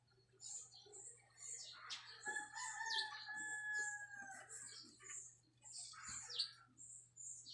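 A rooster crows once, a long held call of about two seconds starting about two seconds in, with small birds chirping throughout.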